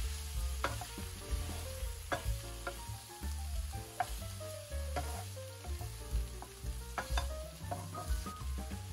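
Shrimp sizzling as they fry in butter and oil in a nonstick pan, stirred with a wooden spoon.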